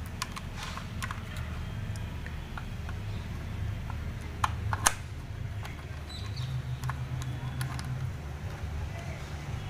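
Screwdriver unscrewing screws from a plastic LED light housing: small scrapes and clicks of the tip in the screw heads, with two sharper clicks about halfway through, over a steady low hum.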